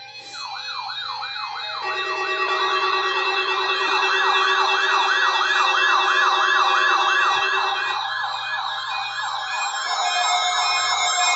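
Several electronic sirens sounding at once, fast rising-and-falling yelp patterns of about three sweeps a second layered over steady tones, growing louder over the first two seconds.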